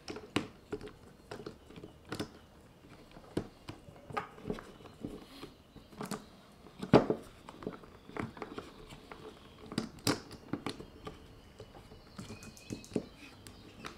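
Scattered clicks and knocks from hands working a small battery pruning chainsaw while its chain tension is set with the tensioner screw, with a sharper knock about seven seconds in and another about ten seconds in.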